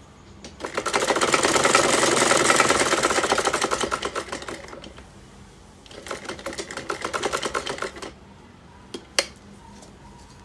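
Usha sewing machine stitching a seam in lace fabric, the needle and mechanism clattering in rapid even strokes. It runs in two bursts, the first about four seconds long, picking up speed and then slowing, and the second shorter, about two seconds. Two sharp clicks come near the end.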